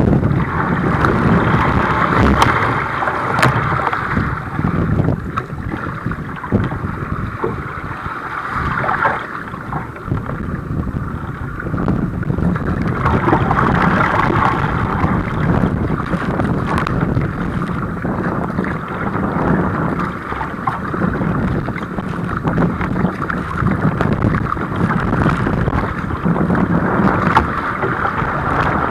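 Wind buffeting the microphone over rough water sloshing and splashing around a kayak, with a few sharp knocks.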